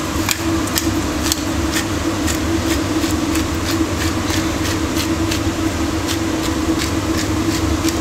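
Kitchen range hood fan running steadily, with a pepper mill grinding black pepper over it in short crunching clicks, about two or three a second.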